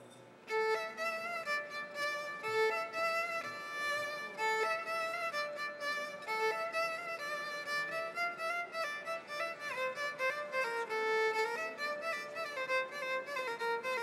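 Solo violin played seated in the Indian classical manner, a single melodic line that slides and bends between notes. It comes in about half a second in.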